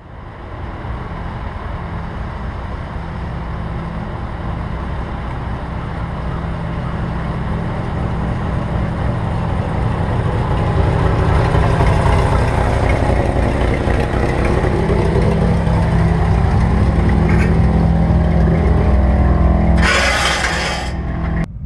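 The 1964 Chevrolet Impala's engine running steadily at a constant pitch, growing louder about halfway through. Near the end a brief loud hiss cuts in for about a second.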